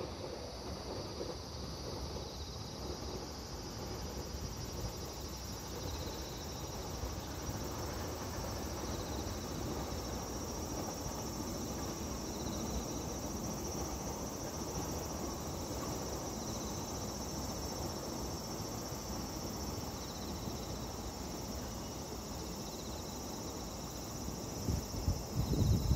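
Distant container freight train passing: a low, steady rumble that swells a little through the middle, under the steady high chirring of insects. Wind buffets the microphone near the end.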